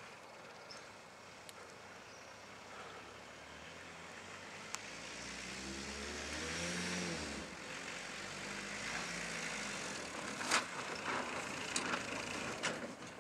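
Diesel Ford Escort van engine heard at a distance, revving up about halfway through and then easing off, over a steady hiss. A few sharp knocks come near the end.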